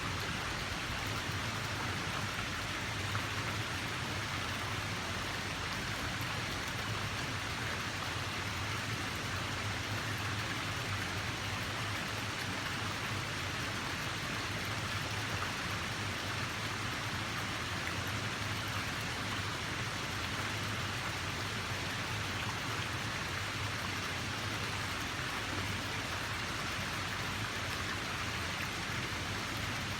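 Steady rush of flowing water, an even, unbroken hiss with no distinct splashes or changes.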